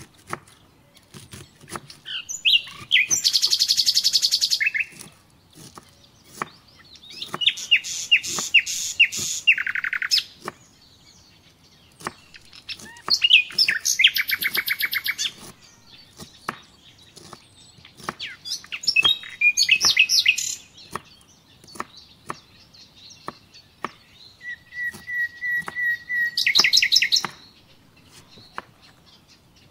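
A songbird singing loud, rapid trilled phrases every few seconds, one of them led in by a short held whistle. Between the phrases comes the steady tapping of a knife chopping vegetables on a wooden cutting board.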